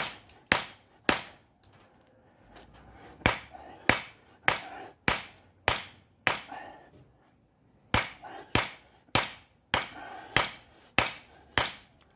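A small ball-peen hammer striking a quartzite boulder again and again, spalling chips and shards off the rock. Sharp strikes come a little faster than one a second, in three runs with two short pauses, one about two seconds in and one about seven seconds in.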